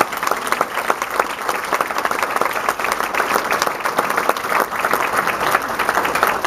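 Audience applauding, many people clapping in a dense, steady patter.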